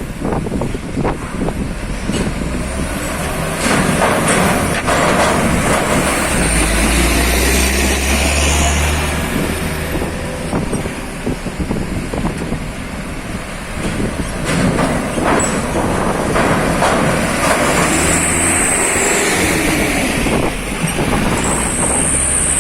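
Heavy diesel trucks rumbling as they move about a ferry dock, with scattered knocks and a deep surge of engine rumble a few seconds in. Two short high hisses near the end, typical of truck air brakes releasing.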